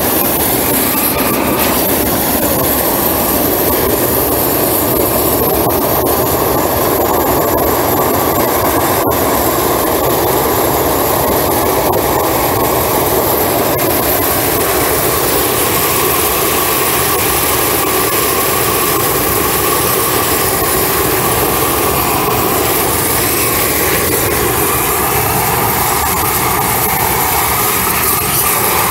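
Propane weed-burner torch burning steadily, a loud, even rushing sound, as its flame is played along a timber beam to scorch the surface.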